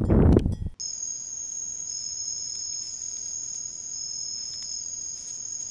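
Night insects trilling steadily on two high pitches, one held constant and the other coming and going. A loud rushing noise cuts off abruptly under a second in.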